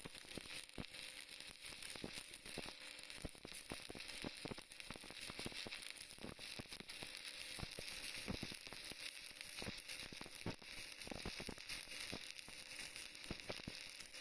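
Stick-welding arc burning a 6013 electrode: a steady sizzling hiss with dense, irregular crackles and pops.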